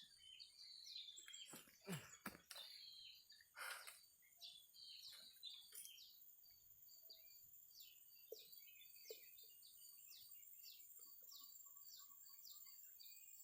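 A small bird chirping in short repeated notes, about two a second through the second half, over a steady high insect drone. A few short knocks come in the first few seconds.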